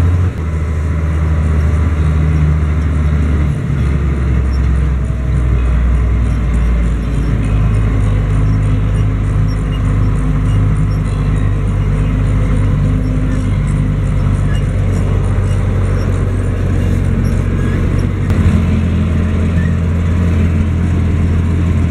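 Six-cylinder Liebherr diesel of a 210 hp Schlüter Super Trac 2200 TVL-LS tractor running, heard from inside the cab, its engine speed shifting a few times as the tractor is manoeuvred.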